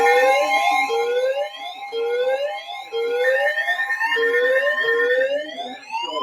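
Siren sweeping up in short rising whoops about once a second over steady high tones, then changing to a long slow wail that rises and falls near the end.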